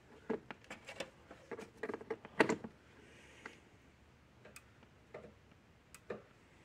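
Irregular light clicks and taps while a Gallagher M150 fence energizer is plugged back in and handled: a cluster in the first three seconds, then a few sparse ticks. No arcing snaps are heard.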